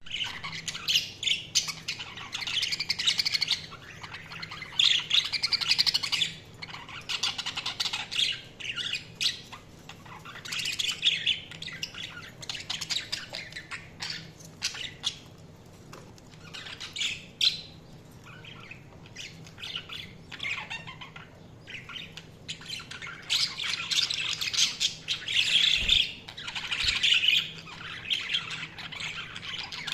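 Budgies chirping and warbling in bouts of rapid, high-pitched chatter mixed with squawks, with short quieter spells between the bouts.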